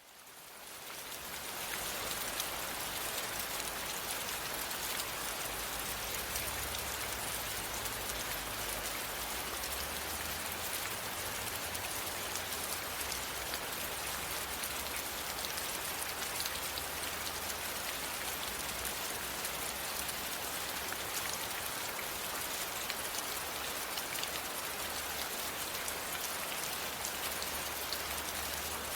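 Steady rain falling, a dense patter of drops with a low rumble underneath, fading in from silence over the first two seconds.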